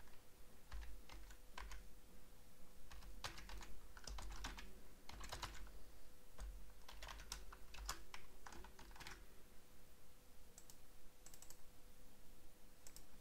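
Typing on a computer keyboard: irregular key clicks in quick runs, thinning out near the end, over a faint steady hum.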